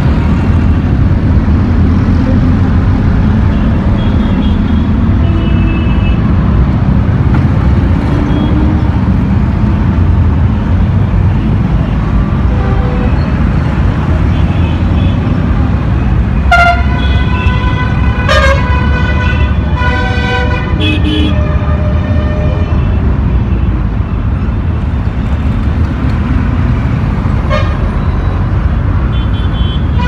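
Heavy mixed road traffic: a steady, dense rumble of motorcycle, auto-rickshaw, truck and bus engines and tyres, with a cluster of several vehicle horns honking about halfway through and more horns near the end.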